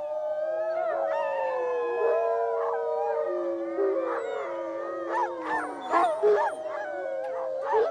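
Recording of a rival wolf pack howling in chorus, played back from a portable stereo through a loudspeaker aimed with a parabolic dish: several long, overlapping howls at different pitches gliding up and down, with shorter, choppier calls in the second half. It is played to tell wild wolves that the territory is already held.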